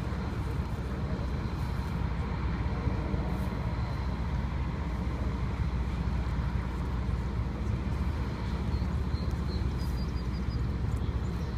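Steady low rumble of road traffic, with a brief run of faint high chirps near the end.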